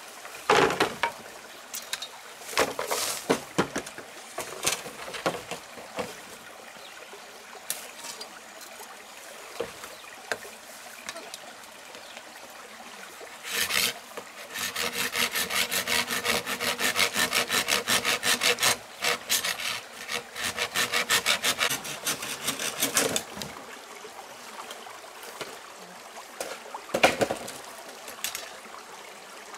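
Machete cutting a green bamboo pole: a few sharp chopping knocks, then about halfway in a steady back-and-forth sawing of the blade across the bamboo, about four strokes a second for roughly eight seconds. One more knock comes near the end.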